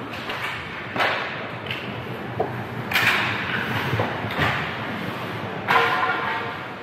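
Ice hockey play: several sharp clacks of sticks and puck, each followed by the hiss of skate blades scraping the ice.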